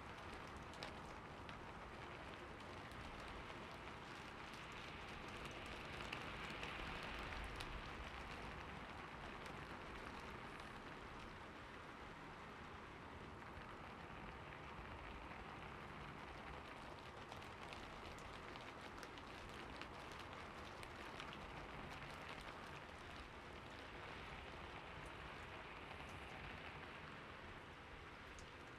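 Faint, steady patter of rain with many fine drop ticks, swelling softly twice.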